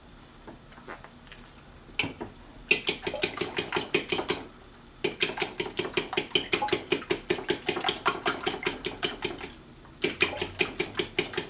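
Metal spoon beating raw eggs in a ceramic bowl, clinking against the bowl about five times a second in three runs with short pauses between them.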